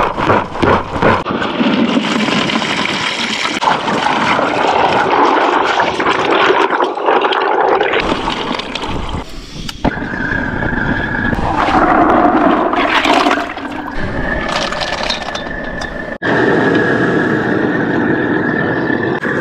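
Live cockles being shaken in a bucket of water to clean them: the water sloshes and churns with the shells rattling. About ten seconds in this gives way to a gas burner running under a wok.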